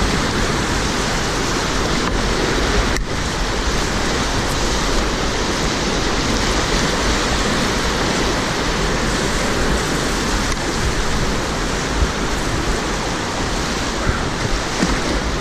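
Whitewater rapids rushing and splashing around a boat running a big-water river: a loud, steady rush of water with no letup.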